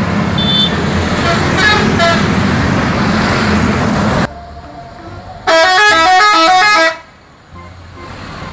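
Busy road traffic with bus engines and motorcycles running and a few short horn toots. After a drop, a bus's multi-tone musical horn (an Indonesian "telolet" horn) plays a quick stepping tune for about a second and a half, just past the middle.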